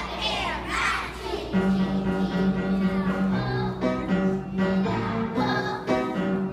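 Young children singing a song together with piano accompaniment.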